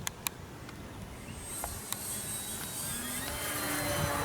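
Electric motor and propeller of an E-flite PT-17 RC model biplane whining, growing louder as the plane approaches, over the rumble of wind on the microphone.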